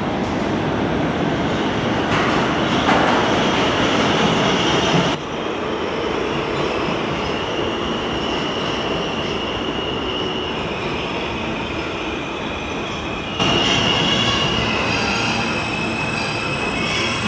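An R160 New York City subway train pulls into an underground station, its wheels rumbling on the track. High steady squealing tones join in partway through and grow louder near the end.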